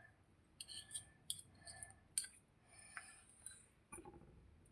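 Spoon stirring a sticky paste of honey, black pepper and clove powder in a small bowl: faint, irregular scraping with light clicks against the bowl.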